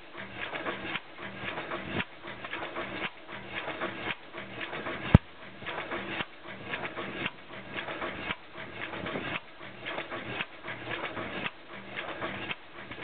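Large hit-and-miss stationary engine with twin spoked flywheels coasting, its valve gear and moving parts clattering in a steady pulse about once a second. One sharp bang about five seconds in is the loudest sound, the engine firing.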